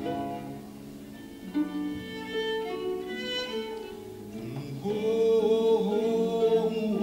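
Concert harp and cello playing a slow, sustained instrumental passage. About five seconds in, a louder long held note swells over them.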